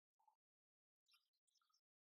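Near silence, with only a few very faint clicks.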